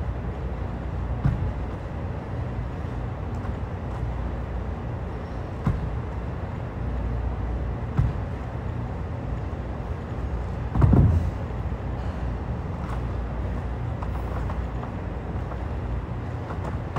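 Dull thumps from a workout of dumbbell power cleans on a wooden floor, the loudest about eleven seconds in, over a steady low rumble.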